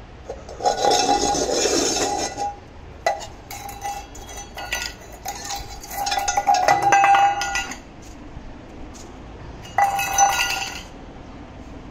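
Stainless steel dog bowl clinking and scraping in three bouts, each with a ringing metallic tone that dies away.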